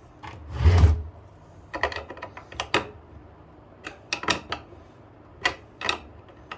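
Scattered clicks and knocks of washing-machine parts being handled and refitted during reassembly, with one longer, louder scrape just under a second in.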